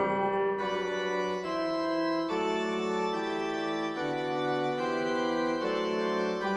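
Background music: sustained organ-like keyboard chords changing about every second.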